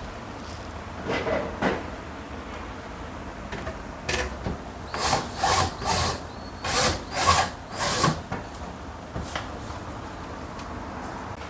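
Short scrapes and knocks of tools and dryer parts being handled while the dryer is reassembled, coming in a quick run between about five and eight seconds in.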